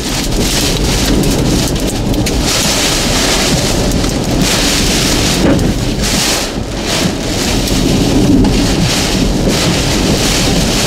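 Heavy wind-driven rain from a tornadic thunderstorm beating on a vehicle, a loud, steady rushing roar that swells and eases slightly.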